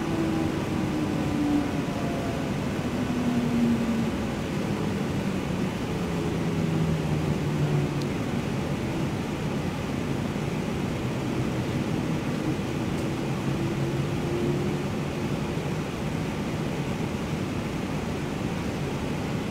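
Light rail train heard from inside the car while it runs: a steady rumble and hiss, with a humming tone that falls in pitch over the first several seconds and rises again later on.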